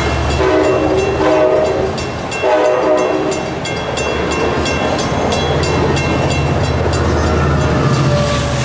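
Amtrak Surfliner bilevel passenger train rolling past close by, its wheels clicking over rail joints in an even rhythm over a low diesel drone. A locomotive air horn sounds a few short blasts in the first three seconds.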